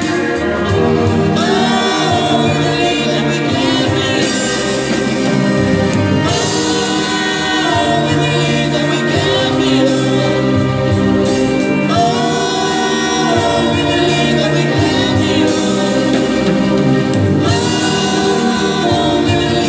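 Live band playing a song: voices singing over keyboards, guitar and bass, at a steady loud level.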